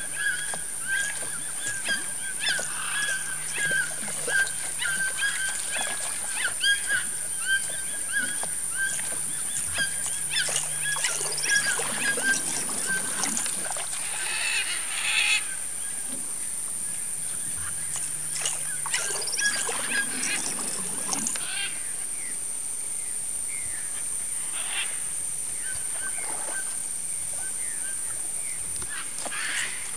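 Tropical forest ambience: many birds calling in short repeated chirps over a steady high insect drone. There are two spells of water splashing near the middle.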